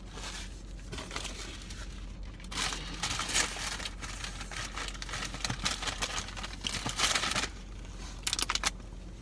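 Paper napkin being crumpled and rustled in irregular bursts for several seconds, followed by a few short sharp clicks near the end.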